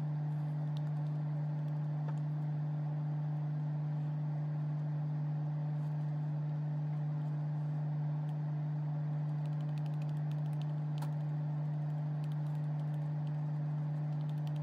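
A steady low hum, unchanging throughout, with a few faint light ticks about halfway through.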